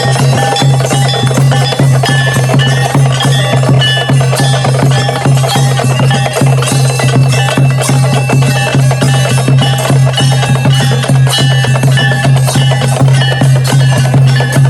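Temple bells and percussion struck rapidly and continuously during a Hindu aarti, with ringing bell tones over a steady low hum.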